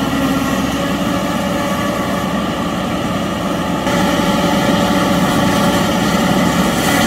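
Tractor engine working under load, driving a forage harvester that chops corn for silage and blows it up the spout into the wagon: a loud, steady mechanical drone that steps up slightly about four seconds in.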